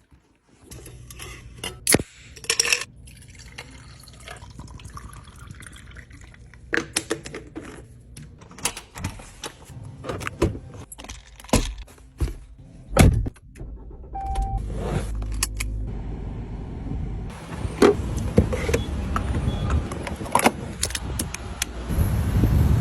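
Scattered clicks, taps and knocks of food packets and fruit being handled and set into place, over a steady low hum that grows louder after about halfway.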